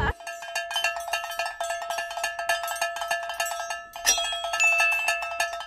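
Bells shaken rapidly: many quick metallic strikes over a steady ringing tone. There is a brief break a little before four seconds, then the ringing starts again with a higher tone added.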